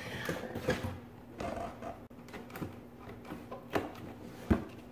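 Cardboard panels of a cat scratching playhouse being handled and pressed into place: scattered rustles and soft knocks, with two sharper knocks near the end.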